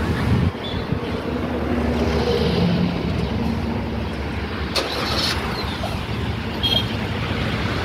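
Steady road traffic noise, a continuous low rumble of vehicles running by, with a few brief clicks about five seconds in and again near the end.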